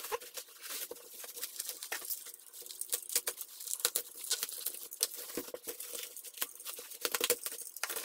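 Plastic bubble wrap rustling and crinkling as it is handled and peeled back from a package, a string of irregular small crackles and clicks.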